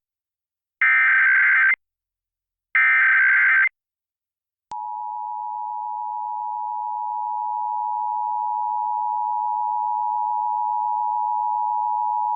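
Emergency Alert System signal over a radio broadcast. First come the last two of three one-second bursts of the buzzing digital header that opens an EAS alert. About four and a half seconds in, the steady, piercing two-tone attention signal starts and runs on, growing slightly louder. Together these mark the start of the nationwide EAS test.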